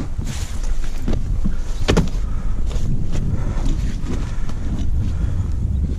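Wind buffeting the microphone, with rustling and light knocks as the cover of a padded unhooking cradle and a mesh landing net are handled. One sharper knock comes about two seconds in.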